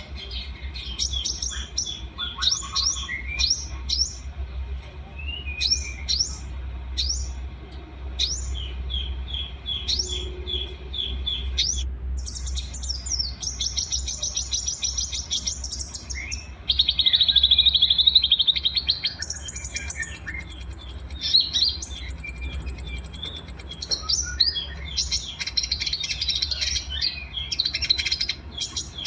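Small songbirds singing in a layered 'masteran' combination for training caged songbirds: quick high chirps and steep downward-sweeping notes, then rapid trills, loudest as a dense buzzing trill about 17 seconds in. A steady low hum runs underneath.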